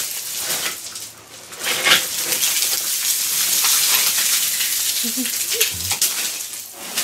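Footsteps crunching and scraping over beach gravel and mussel shells, a dense crackle of small clicks and clatters that swells about two seconds in and eases off near the end.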